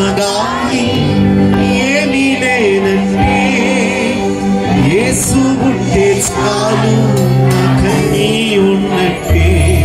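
A man singing a Christian worship song into a microphone, his voice wavering and sliding between notes, over a steady accompaniment of held chords.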